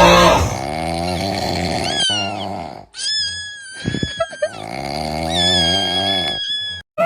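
Comedic snoring sound effect played twice: each time a rasping snore in, then a high, steady whistle out that slides down at its end.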